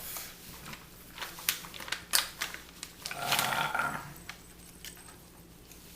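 A few sharp plastic clicks and rustling from greasy hands struggling to twist the cap off a carton of beef broth.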